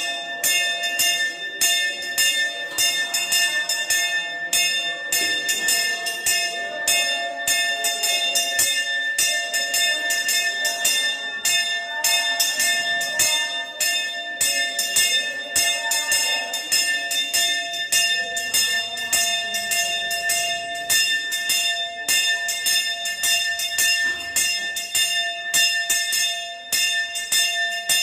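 Brass temple hand bell (ghanta) rung rapidly and without a break, about four or five strikes a second, its ringing tones held steady.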